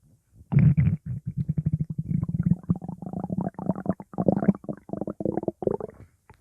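Stomach growling: a long gurgling rumble of rapid pulses that starts about half a second in and dies away near the end.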